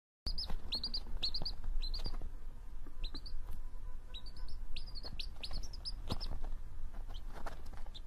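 Domestic chick peeping: short high-pitched peeps in quick runs of two or three, growing sparser towards the end, over a low rumble and a few soft clicks.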